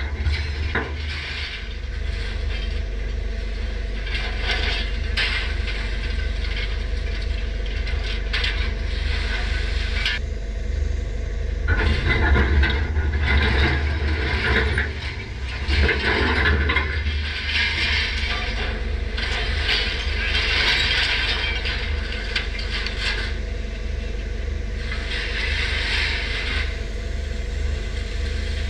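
Grab claw mechanism working: a steady low hum under repeated stretches of gear whirring and grinding, a few seconds each, as the claw opens and closes.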